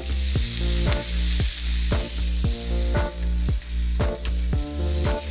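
Steak frying in a hot pan: a steady sizzle, with background music keeping a beat about twice a second.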